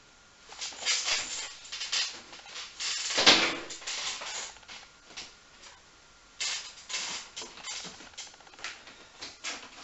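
Hard plastic storage boxes being handled and stacked: a run of irregular scrapes and knocks of plastic on plastic, the loudest about three seconds in.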